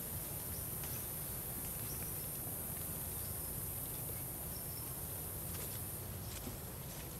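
Steady high-pitched drone of an insect chorus in forest, over a low background rumble, with a few faint clicks and rustles of leaf litter.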